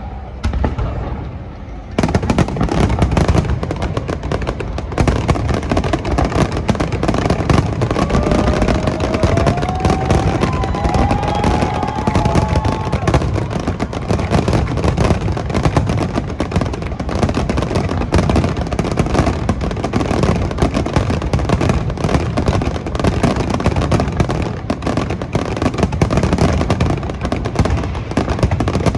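Aerial firework shells bursting in a dense, continuous barrage of booms and crackles, building up about two seconds in and keeping up without pause. A faint rising whistle sounds partway through.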